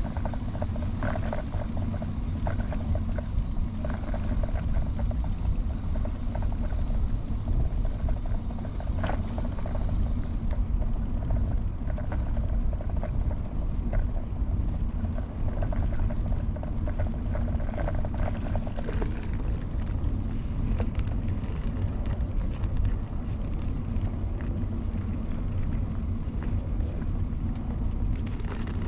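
Steady low rumble of wind on the microphone and tyre noise from a moving early-1970s Peugeot UJ-10 ten-speed bicycle, with scattered light clicks and rattles from the bike.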